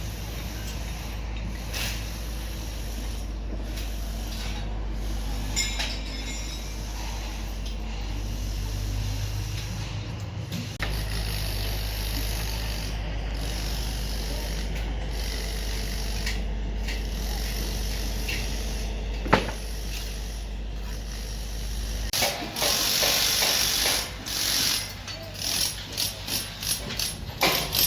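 Excavator at work: a steady low engine hum under mechanical clicking and grinding. About two-thirds of the way through, the hum drops away and louder, uneven scraping and clattering takes over.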